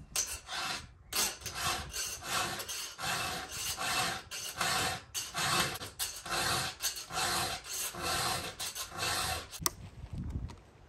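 Hand file rasping across the cutters of a .404-pitch chainsaw chain on a 42-inch bar, in steady strokes about one every three quarters of a second, stopping shortly before the end. The chain is being sharpened because its cutters are ragged, one with a corner knocked off.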